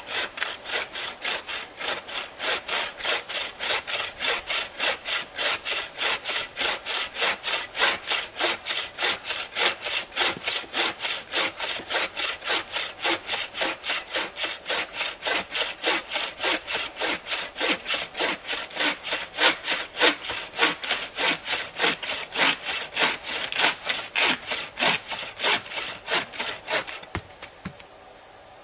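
A log being cut by hand with a wooden frame bucksaw: steady back-and-forth strokes, a little over two a second, which stop shortly before the end.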